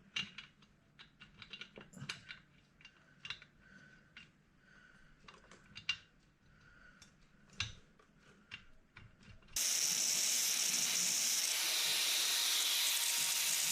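Light clicks and taps of small engine parts being handled and fitted. Then, about nine and a half seconds in, a steady loud hissing grind starts suddenly, fitting a grinder taking metal off the engine or its mount.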